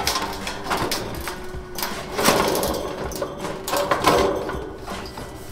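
Sheet-metal board-and-batten siding panel rattling and scraping against the neighbouring panel's seam as it is pushed into place by hand, with irregular knocks, loudest a little past two seconds and again about four seconds in.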